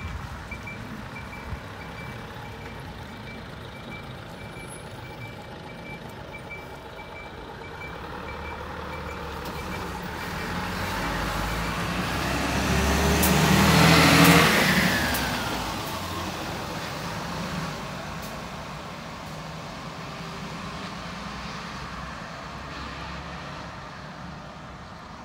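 A bus drives past close by. Its engine and tyres grow louder over several seconds, peak about halfway through, then fade, with a falling whine as it goes by. A faint repeated beep sounds through the first half.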